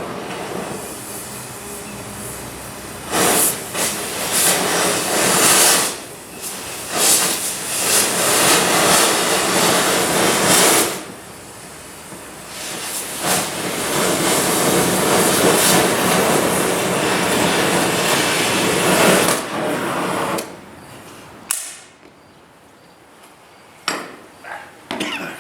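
Oxy-acetylene cutting torch hissing as it burns through rusted steel channel, the rush of noise swelling and dropping in surges, then going much quieter about 21 seconds in.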